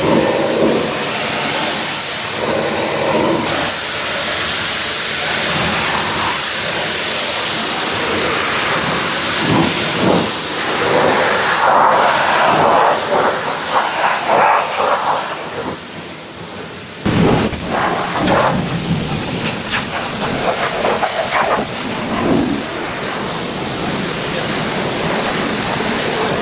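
Pressure washer spraying water against a truck: a loud, steady hiss of the jet hitting the bodywork, whose sound changes abruptly about two-thirds of the way through.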